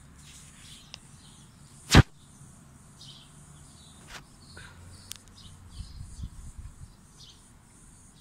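A single sharp, loud knock about two seconds in, with a few fainter clicks later and faint chirps in the background.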